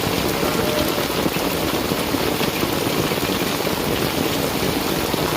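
Steady rain falling and pattering on surfaces, an even, unbroken hiss.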